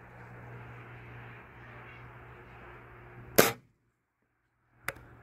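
A single shot from a 1200 fps pellet rifle about three seconds in: one sharp crack over a faint steady hum. Two small clicks follow near the end.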